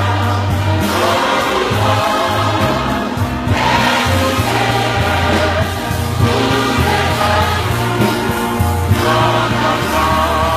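Choir of many voices singing a Haitian Creole gospel worship song over a steady bass line, the bass changing note every second or so.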